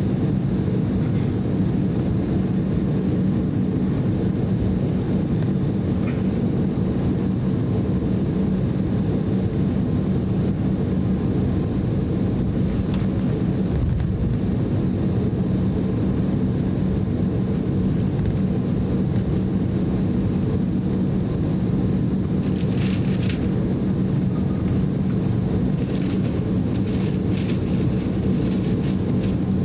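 Cabin noise inside an Embraer E190 airliner taxiing: a steady low drone from its turbofan engines, with a few short clicks or rattles in the last several seconds.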